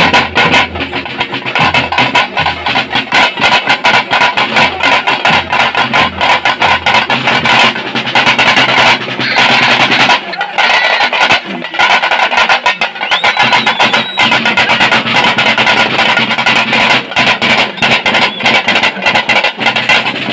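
A troupe of dappu frame drums and a barrel drum, beaten with sticks in a loud, fast, dense rhythm.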